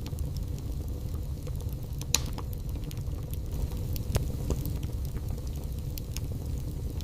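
Wood fire burning in a fireplace, crackling with many small clicks over a steady low rumble, and with louder sharp pops about two seconds in and again about four seconds in.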